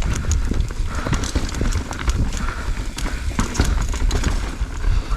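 Mountain bike rattling down a rocky trail: a rapid, irregular clatter of knocks from the tyres and frame hitting rocks, over a steady low rumble.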